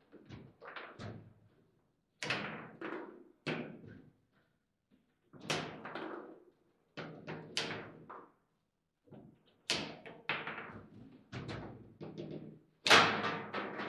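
Table football play: the ball cracking against plastic players and the table walls, with rods knocking against the bumpers, in irregular clusters of sharp knocks; the loudest comes about a second before the end.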